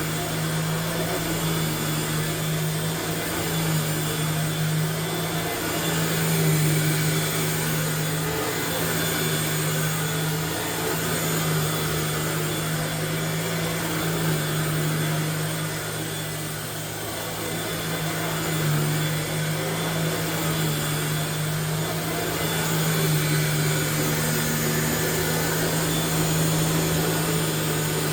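1994 Dirt Devil Broom Vac model 712 running steadily while vacuuming, a constant motor hum over a rushing air noise that dips slightly about halfway through.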